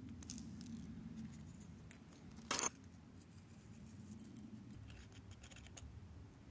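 A metal spoon scraping and clicking against containers while dry pancake ingredients are scooped and measured, with one brief louder scrape about two and a half seconds in and a few light clicks near the end.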